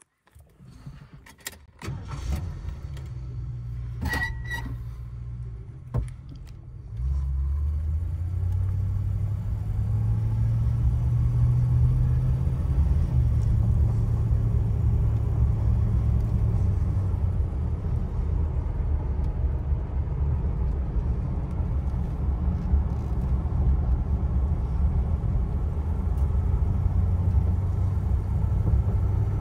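1978 Mercury Grand Marquis V8 heard from inside the cabin: a few clicks and a short high tone in the first seconds over a low engine hum. About seven seconds in, the engine and road noise rise to a steady low rumble as the car gets under way.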